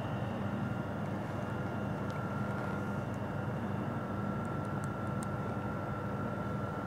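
Steady mechanical hum of room machinery with a faint high whine over it; a few faint light ticks come about four and a half to five seconds in.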